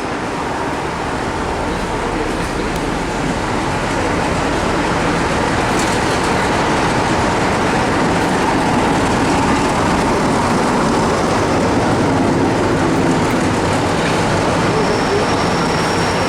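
A train passing close by, a steady rumble of wheels and running noise that grows a little louder over the first few seconds. A thin high tone comes in near the end.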